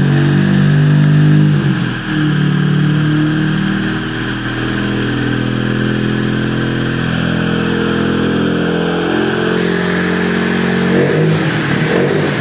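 Vauxhall Cavalier Mk2 engine running at a steady idle, heard from inside the car's cabin. The engine note dips briefly about two seconds in and turns rougher and unsteady near the end.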